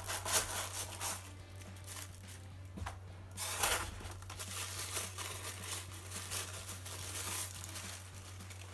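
Clear plastic wrapping crinkling and rustling as it is handled and pulled off a display plaque, in a series of short crackles with a louder burst about three and a half seconds in.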